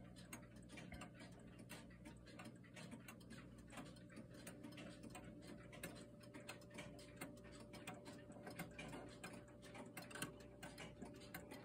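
Faint, even tick-tock of an 1850s Seth Thomas weight-driven lyre movement, running in beat.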